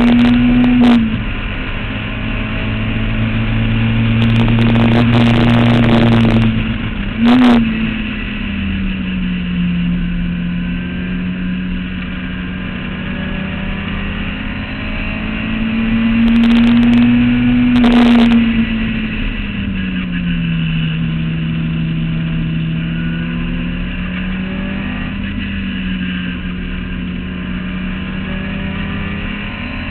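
Clubman sports racing car's engine heard from its open cockpit at speed, the engine note climbing and dropping several times as the car accelerates and slows, with a few short sharp cracks and a steady rush of wind and road noise underneath.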